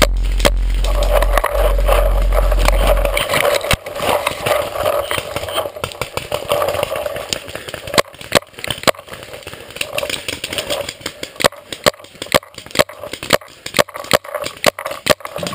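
Dry branches and brush crackling and snapping in many irregular sharp cracks as someone forces a way through a thicket, with a low rumble under it for the first three seconds.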